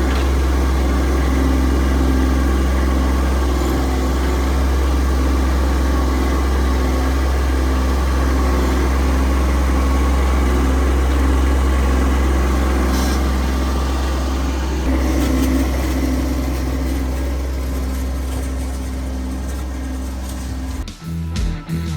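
Kubota B2301 compact tractor's three-cylinder diesel engine running steadily, powering the backhoe, with a slight change in its note about two-thirds of the way through. Near the end the engine fades and music cuts in.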